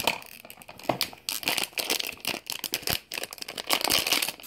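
Crinkly packaging being pulled open by hand to unwrap a small vinyl figure: continuous rustling and crinkling with many sharp crackles.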